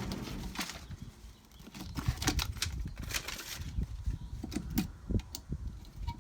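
Hands working with tape and plastic parts: irregular crackles, rustles and light knocks as tape is handled and pressed down.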